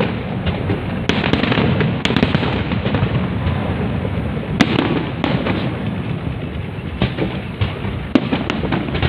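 Fireworks display: a dense, unbroken barrage of overlapping bursts and crackles, with sharper pops standing out every second or so.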